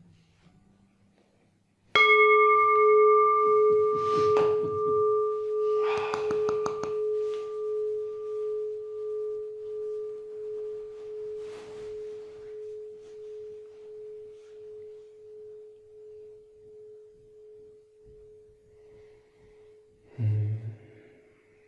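A Buddhist singing bowl struck once, ringing with a clear tone that wavers slowly in loudness and dies away over about fifteen seconds.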